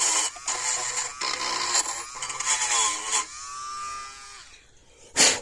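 Dremel rotary tool grinding off corrosion, its whine wavering as the bit bears on the metal. About three seconds in it is lifted clear and winds down as it is switched off, and a sharp knock comes near the end.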